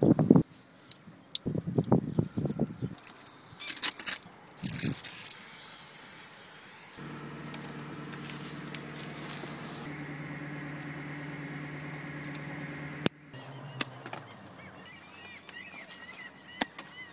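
Knocks and handling noises with two short hisses, then a motor hums steadily for about six seconds and cuts off with a click. Faint chirping follows.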